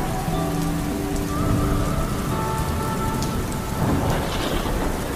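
Rain falling on a car's windshield and roof, heard from inside the car. Music with held notes that change pitch every second or so plays underneath.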